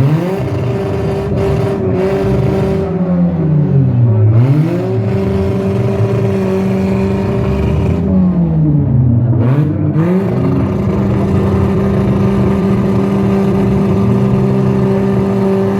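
A car engine revved hard and held at high revs, easing off and climbing back up twice. A few sharp knocks sound in the first seconds.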